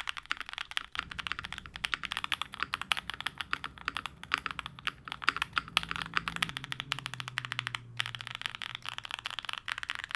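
Continuous fast typing on a Neo98 custom mechanical keyboard fitted with Vertex V1 linear switches, in a fully foamed build on silicone gaskets: a dense run of light clacks.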